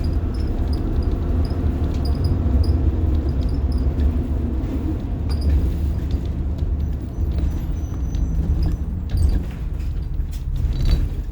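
Inside a 1990 Blue Bird All American school bus under way: its rear-mounted diesel engine runs steadily, with road and drivetrain noise, low and even.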